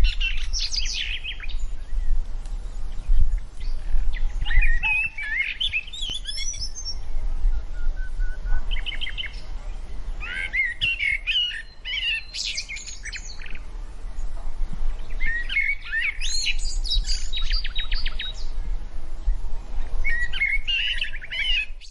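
Small birds chirping and singing in quick bursts of trills and twitters, with short pauses between phrases, over a steady low rumble.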